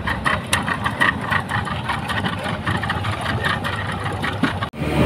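Heavily loaded speedboat's engine running with a rapid crackling, rattling beat; the load keeps the boat from getting up onto the plane. The sound drops out briefly near the end and comes back steadier.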